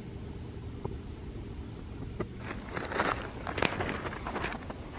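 A hiker's footsteps on the trail, starting about two seconds in, over a steady low rumble.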